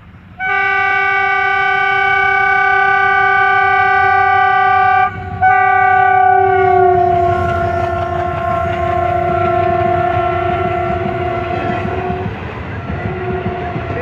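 WDM3A diesel locomotive's horn blowing long, almost unbroken blasts, cut off briefly about five seconds in and again near the end, its pitch dropping about seven seconds in as the locomotive passes. Under it the train's coaches rumble past with wheels clicking over the rail joints.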